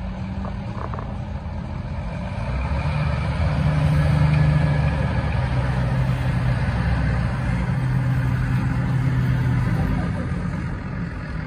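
Diesel tractor engines working hard under load while one tractor tows another out of deep mud on a tow strap. The engine note builds about two and a half seconds in and then holds steady and strong.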